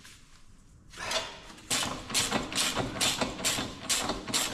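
Ratchet wrench clicking as a bolt is tightened down through a metal floor drain grate, snugged just enough to grip. The clicks start a little under two seconds in and come evenly, about three a second.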